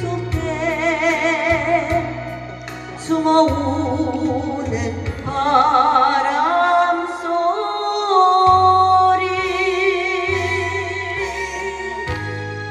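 A female singer sings a Korean trot ballad over a backing track, with a steady bass beat under her voice. She uses heavy vibrato and holds one long high note near the middle.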